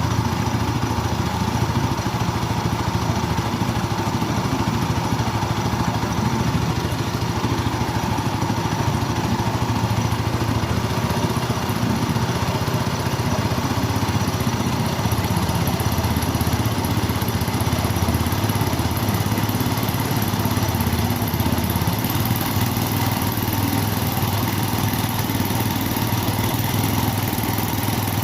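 Suzuki Spin 125 scooter engine, a single-cylinder four-stroke, running steadily as a home-built boat outboard motor driving a propeller shaft through a gearbox. Its speed holds even, with no marked revving up or down.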